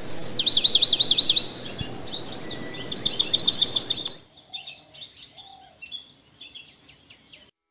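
Songbird singing two loud phrases of rapidly repeated high notes, the second about three seconds in, over a steady background hiss. About four seconds in the hiss cuts off, and fainter scattered chirps and twitters follow.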